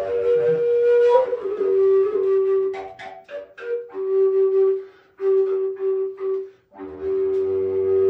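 Wooden flute playing a slow melody: a higher note drops to a lower one that is held and repeated in phrases with short breaks between them. A faint low drone sounds beneath it for the first couple of seconds and again near the end.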